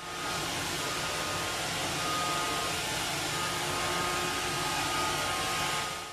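Robot vacuum cleaner running: a steady hiss with a faint high whine.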